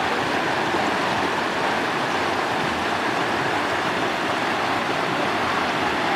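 Steady, even rush of river water flowing over rocks near a waterfall.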